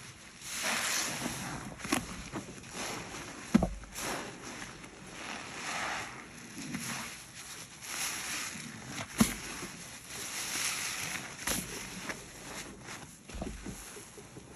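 Wet, foam-soaked cellulose sponges being squeezed and worked by rubber-gloved hands in a basin of white cleaning paste: repeated squelching and fizzing of foam in waves every second or so, broken by a few sharp clicks and soft thuds.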